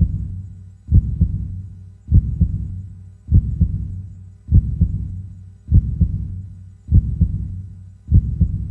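Heartbeat sound effect: slow, steady paired lub-dub thumps, about one beat every 1.2 seconds, low-pitched with a fading hum between beats.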